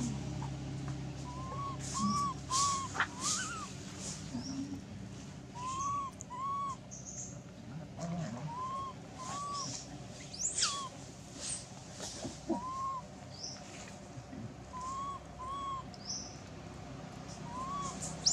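Animal calls: short hooting notes, mostly in pairs, repeating every few seconds, with a few sharp rising whistles, the loudest about halfway through.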